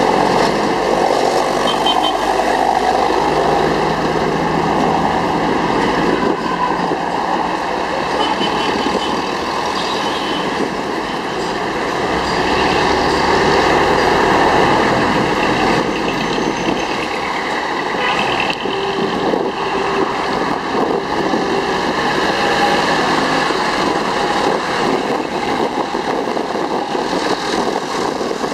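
Jeepney's diesel engine running and steady road noise, heard from inside the moving jeepney.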